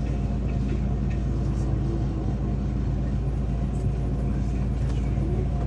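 Steady low engine drone from a running motor, holding one pitch throughout.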